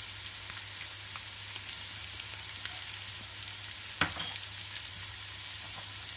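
Onions, green chilies and curry leaves frying in hot oil in an aluminium pot: a steady sizzling hiss, with a few sharp crackles in the first second or so and a louder pop about four seconds in.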